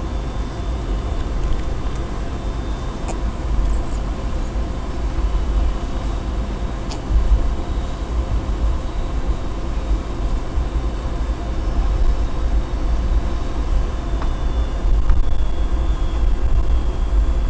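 Cabin noise of a McDonnell Douglas DC-9-51 taxiing, heard from a forward seat: a steady low rumble with a faint, steady whine from its rear-mounted Pratt & Whitney JT8D engines at taxi power. A couple of faint clicks come through, about three and seven seconds in.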